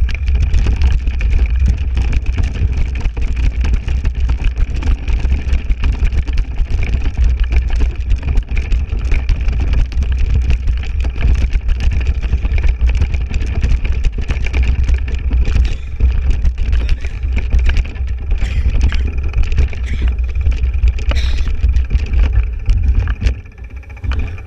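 Wind buffeting the microphone and a mountain bike rattling and clattering over rough ground on a fast downhill, with a steady high whine running under it. The noise drops away shortly before the end as the bike slows.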